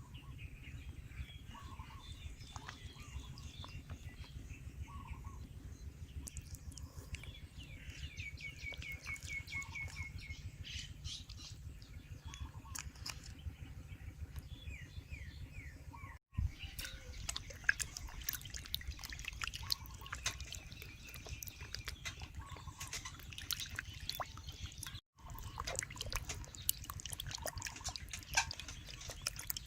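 Birds chirping, with a quick trill of repeated notes partway through, over a steady low background hum; after an abrupt cut, a busy run of small dripping and clicking sounds.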